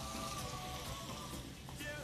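Background music with held tones, over a faint sizzle of chicken and pineapple pieces frying in a pan on medium heat.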